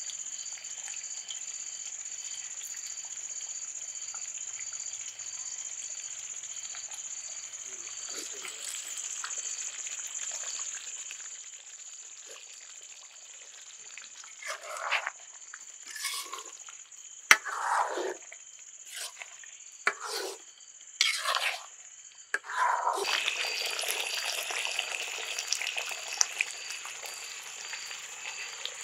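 Chicken gravy simmering and sizzling in an open pan, over a steady high-pitched drone. Several short, louder irregular sounds come about halfway through.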